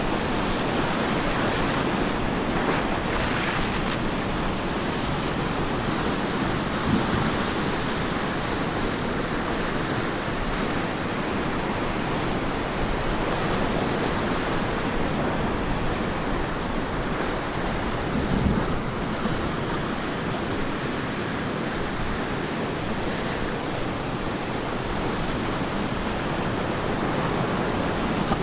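Ocean surf washing steadily onto the shore, a continuous roar of breaking waves with slight swells in level, and some wind on the microphone.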